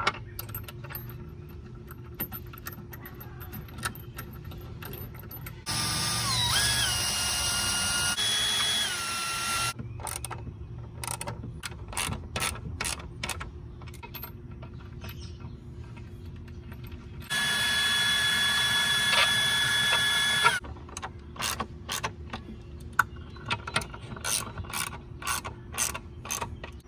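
Machine bolts being run up into a workbench top: a hand ratchet clicks in runs of quick strokes, and twice a cordless power tool runs for a few seconds with a steady motor whine, the first time about six seconds in and the second a little past the middle.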